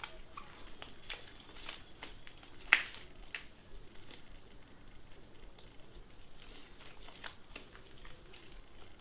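Scattered faint clicks and crackles of clear-glue slime being handled, with one sharper click nearly three seconds in.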